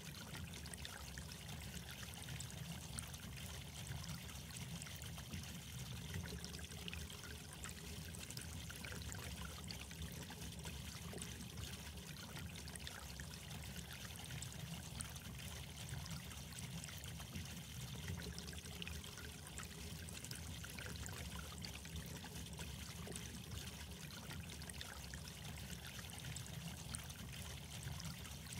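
Steady trickle of running water with a low hum underneath.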